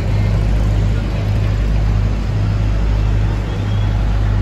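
Steady low engine drone of road traffic, with a constant hum and no break.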